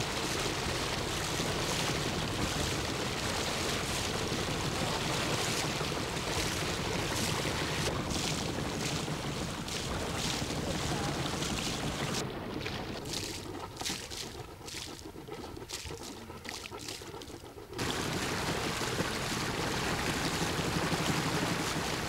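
Motor of a river cabin boat running steadily under way, with wind on the microphone and water noise. The sound drops quieter for a few seconds past the middle, then comes back abruptly.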